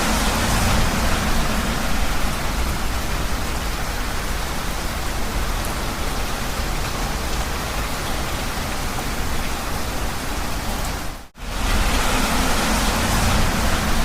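Heavy rain falling with a steady, dense hiss. About eleven seconds in it cuts out for a split second and then resumes.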